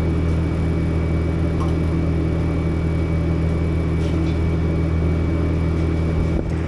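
Steady low machine hum with a thin high whine, as from a motor or fan running in the shop, with a few faint light ticks.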